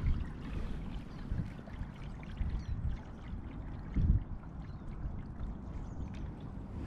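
Water trickling and lapping along a moving kayak's hull, with small drips from the paddle and a few dull low bumps, the loudest about four seconds in.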